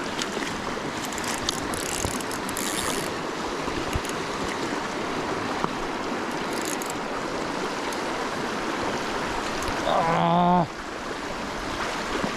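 Creek water rushing steadily, with a few faint high clicks and a short loud vocal exclamation about ten seconds in.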